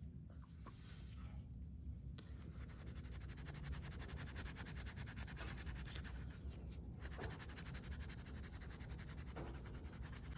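Abrasive scrubbing on the bronze censer: a fast, even scratching and rubbing that starts about two seconds in, pauses briefly around seven seconds, then goes on.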